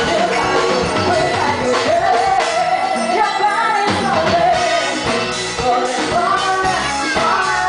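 A live band plays while a woman sings lead through a microphone. Her voice holds and slides between long notes over electric guitar and the rest of the band.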